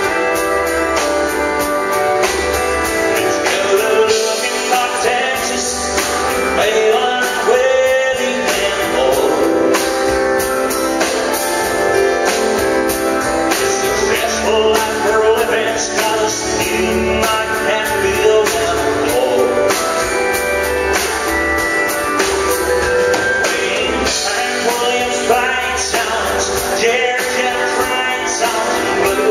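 Live country music: a male singer with strummed acoustic guitar, backed by pedal steel guitar, bass and drums.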